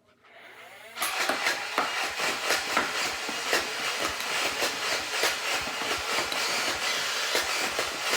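Adventure Force Matrixfire battery-powered dart blaster winding up, then firing full-auto from about a second in: a steady motor din with a fast run of clacks as darts are fed through and shot.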